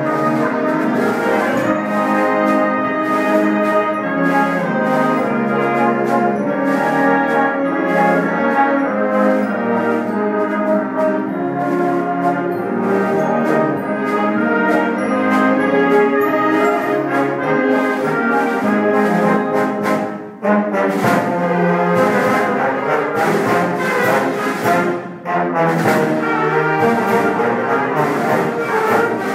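School concert band playing a piece in full ensemble, saxophones, clarinets, trombones and other brass sounding sustained chords together. The sound breaks off briefly twice in the last third.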